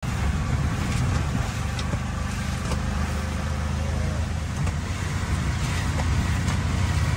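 Auto-rickshaw engine running steadily with a low hum, under an even hiss of heavy rain and wet road, with a few faint clicks scattered through.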